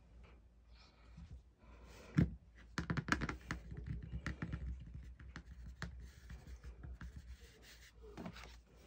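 Hands tapping and patting on a plastic cutting mat: a thump about two seconds in, then a run of quick, light finger taps and a few more near the end.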